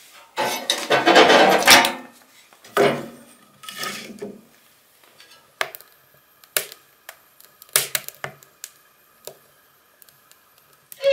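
Wooden boards knocking and scraping as they are loaded into a wood-burning stove, then a few single sharp crackles, about one a second, from the wood burning in the firebox.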